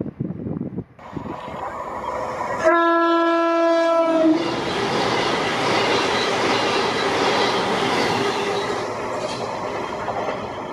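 A CrossCountry Voyager diesel multiple unit sounds its horn, one steady note held for about a second and a half, then rushes past at speed with loud wheel-on-rail and passing-train noise that eases near the end.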